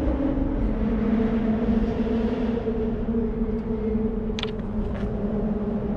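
A motor engine drones steadily, its pitch dropping slightly under a second in, over wind rumble on the microphone; a few sharp clicks come about four and a half seconds in.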